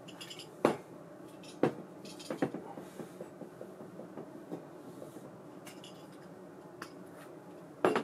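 Small metal parts being handled, clinking and knocking: several sharp separate clinks at uneven intervals, the loudest about a second in, near two seconds in and at the very end.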